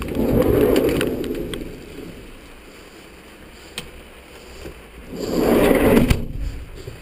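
Rumbling handling and movement noise, with scattered light clicks and knocks as parts are moved about. It swells at the start and again about five seconds in.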